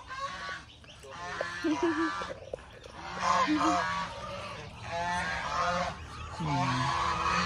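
Domestic farmyard ducks calling, with loud quacks and honks in repeated bouts.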